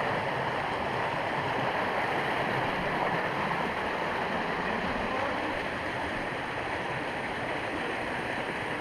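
Small mountain creek rushing over rocks: a steady, close water noise.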